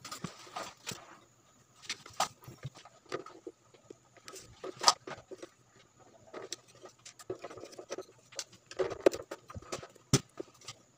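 Scattered clicks, taps and knocks of hands and a small knife working on a plastic speaker housing and its wiring, with sharper knocks about halfway through and near the end.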